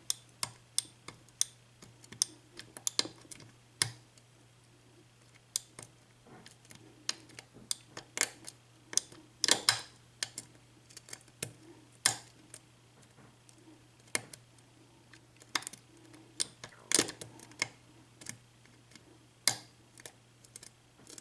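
Lock pick clicking and scraping against the pin stacks of an Assa six-pin oval cylinder lock during single-pin picking: irregular sharp ticks, some in small clusters, as the pins are pushed while the cylinder sits in a false set. A steady low hum runs underneath.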